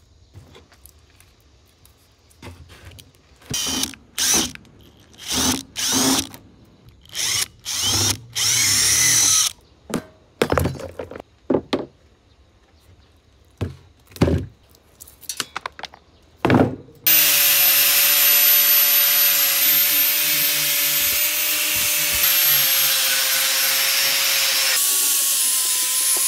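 About a dozen short power-tool bursts, each under a second, some with a whine that sweeps in pitch. Then an angle grinder with an abrasive strip disc starts and runs steadily against a rusty iron chair frame, its pitch shifting slightly as the disc bears on the metal.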